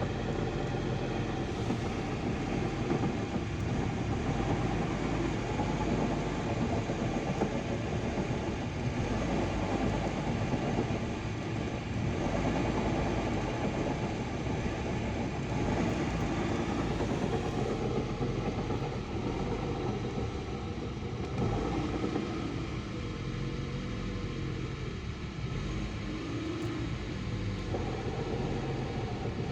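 VAZ-2110 car running, with a steady hum that the owner puts down to the gearbox's input shaft bearing.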